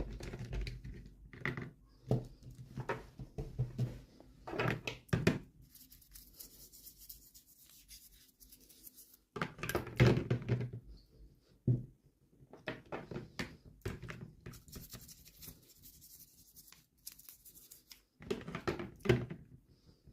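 Hands opening toy packaging: irregular clicks, knocks and scrapes of plastic and cardboard, with two longer stretches of tearing or crinkling.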